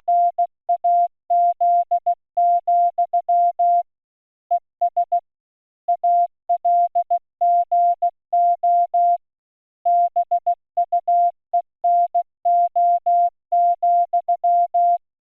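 Morse code beeps: a single mid-pitched tone keyed on and off in short and long beeps, with a few longer pauses between groups of characters.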